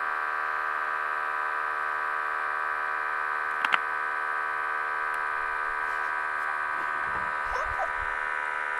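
Electric water gun's small pump motor running steadily with a constant whine as the reverse trigger is held, sucking water in to fill the gun and its extender reservoir. A short click sounds about a third of the way through.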